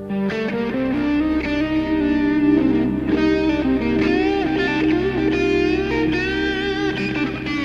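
Guitar-led instrumental music: a new passage comes in suddenly at the start, with an electric guitar playing a lead of bent, sliding notes over a steady band backing.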